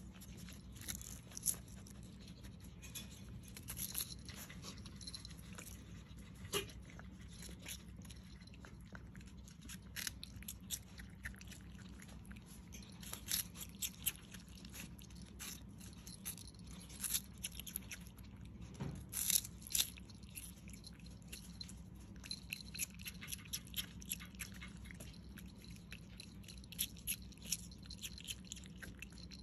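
Striped skunk biting and chewing a celery stalk: irregular sharp crunches of the crisp stalk, now sparse, now in quick runs, the loudest a little under two-thirds of the way through.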